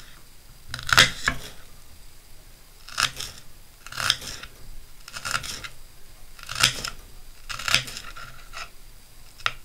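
A kitchen knife slicing through small red onions onto a wooden board: about eight separate crunchy cuts, roughly one a second, as the onion is diced into small cubes.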